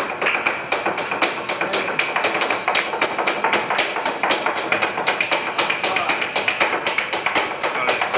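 Flamenco dancer's footwork (zapateado): a rapid, continuous run of heel and toe strikes on the stage over flamenco music in alegrías.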